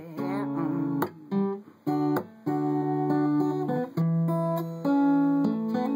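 Acoustic guitar strummed by hand, playing chords with sharp strokes; the chords are cut short twice in the first few seconds before the strumming carries on.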